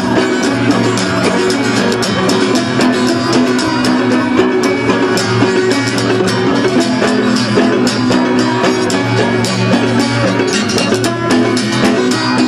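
Live band playing an instrumental break in a sea-shanty tune, with strummed guitar and drums keeping a steady beat.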